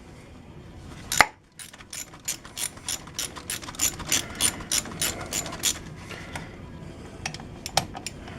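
Socket ratchet clicking as it backs out the half-inch brake caliper mounting bolts on a Polaris Sportsman 400 ATV: one sharp click, then a quick run of ratchet clicks for several seconds, then a few scattered clicks near the end.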